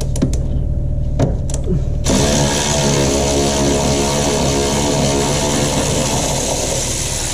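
Power ratchet running steadily, spinning out the two 13 mm top shock-mount bolts on a C6 Corvette's rear suspension. A few sharp clicks come before it starts about two seconds in.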